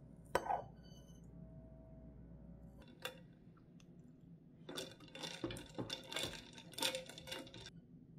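Metal fork clinking and scraping on a ceramic plate while cutting into a slice of chocolate cake: one sharp clink about half a second in, another near three seconds, then a run of quicker clicks in the second half.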